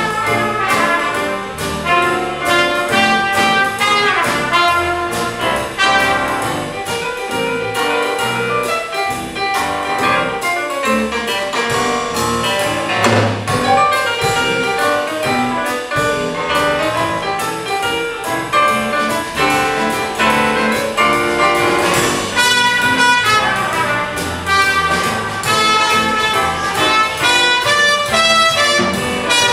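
Live band of saxophones, trumpets, trombone, tuba and electric bass playing a Christmas piece, with a trumpet out in front.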